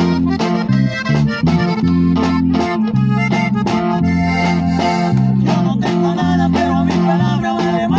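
A live norteño-style trio plays: an accordion carries the melody over a strummed acoustic guitar and an electric bass played through a portable speaker, with a steady rhythmic beat.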